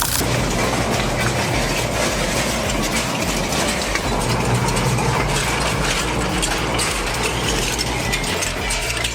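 Industrial shredder running under load, grinding material with a steady low mechanical hum and dense crackling clatter.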